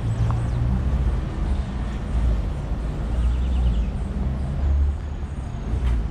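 Street ambience with motor traffic passing, heard as a steady low rumble. A short sharp click comes near the end.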